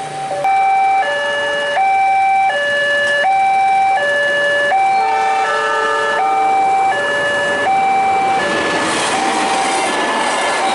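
Railway level-crossing warning alarm sounding a two-tone electronic signal, switching steadily between a higher and a lower pitch about every three-quarters of a second. From about nine seconds in, the noise of a passing train rises under it.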